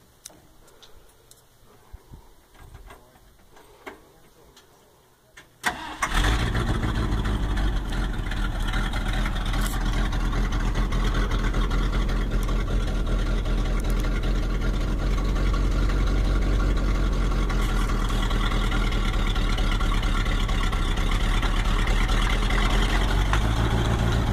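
Old dump truck engine starting about five and a half seconds in, catching almost at once and then running steadily at idle, its speed rising slightly near the end. Before the start only a few faint taps are heard.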